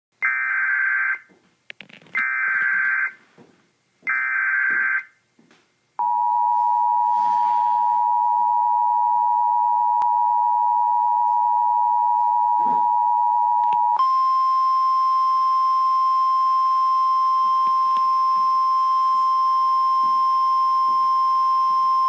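Emergency Alert System tones played through a laptop speaker: the SAME digital header sent three times as one-second screechy data bursts, then the two-tone EAS attention signal held for about eight seconds. About fourteen seconds in it switches to the single steady 1050 Hz National Weather Service alert tone, which introduces a flood warning.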